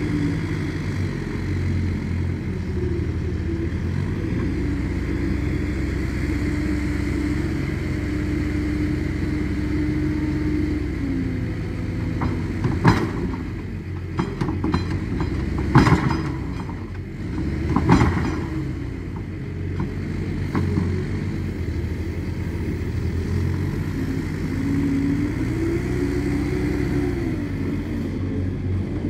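Manitou MLT741-120 LSU telehandler's diesel engine running steadily while loading manure, with a few loud clanks and knocks about halfway through as the raised bucket empties over the manure spreader. The engine revs up and down near the end.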